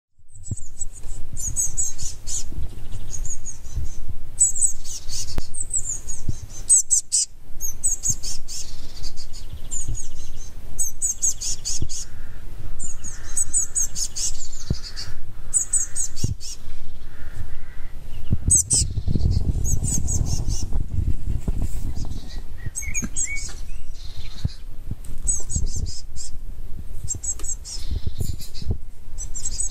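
Fledgling Eurasian blue tit calling: repeated short trains of very high, rapid chirps, about once a second. A brief low rumble comes about two-thirds of the way through.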